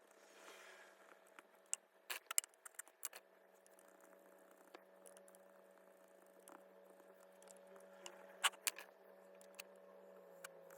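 Scattered light clicks and taps, a cluster of them about two to three seconds in and another near the end, over a faint steady hum.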